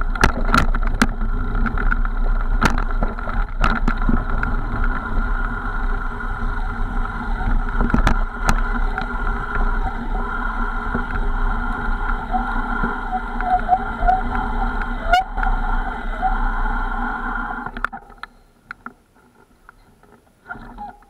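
Riding noise of a mountain bike on a rough dirt track, picked up by a camera carried on the ride: a loud, steady rumble with sharp knocks from bumps. It drops away about eighteen seconds in as the bike comes to a stop.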